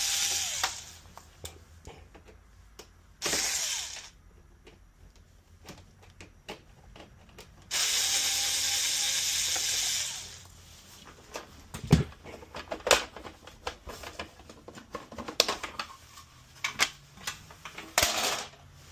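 Electric screwdriver running in three bursts, the longest about two seconds, backing out the screws of an espresso machine's top panel. After that come scattered clicks and knocks of screws and the plastic panel being handled, with two louder knocks.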